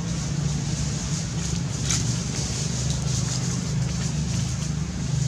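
Steady low drone of a running engine, with a faint steady high hiss above it and one short sharp sound about two seconds in.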